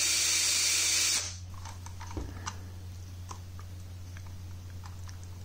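Power drill boring a notch into the plastic cab of a model locomotive, running steadily and stopping abruptly about a second in. After it, a few faint light clicks.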